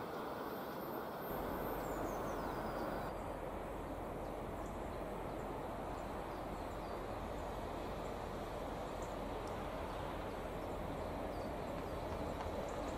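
Steady outdoor background noise with a few short bird chirps, slowly growing louder near the end as a train approaches from a distance.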